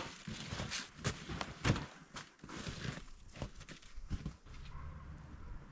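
Irregular footsteps and knocks with some rustling, as camping gear is carried and handled in the snow.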